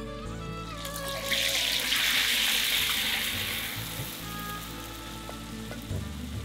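A masala-coated whole chicken going into hot oil in a kadai, the oil bursting into a loud sizzle about a second in and then settling into a steadier, slowly fading frying hiss. Background music plays underneath.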